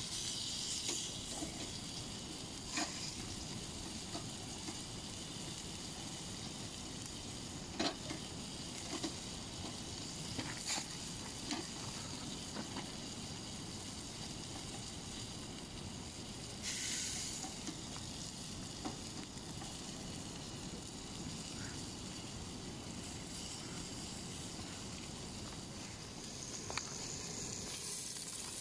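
Meat steaks sizzling on the grate of a small portable charcoal grill, with a few sharp clicks of metal tongs against the grate as the pieces are moved. There is a brief louder hiss about halfway through.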